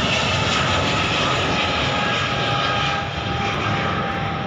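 Airliner flying low overhead: a steady engine noise with whining tones that eases slightly about three seconds in.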